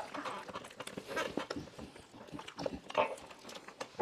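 Soft, scattered wet eating sounds of people eating cake face-first with no hands: a few short smacks and breaths.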